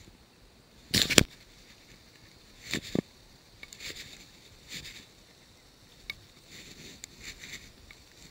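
Handling noise from unhooking a bass and stripping in fly line: two loud sharp knocks about one and three seconds in, then a series of soft swishes.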